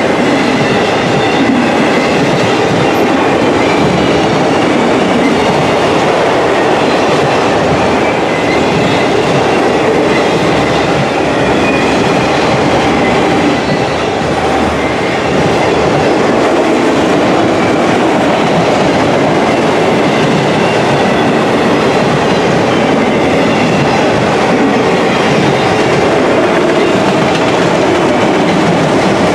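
Auto rack freight cars rolling past at close range: a loud, steady rumble of steel wheels on rail with clickety-clack over the joints and a faint high whine above it.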